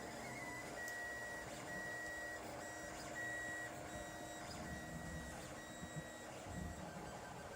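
Lulzbot TAZ 5 3D printer's stepper motors running through a series of short moves: a high whine that starts and stops every half second or so, over a steady low machine hum.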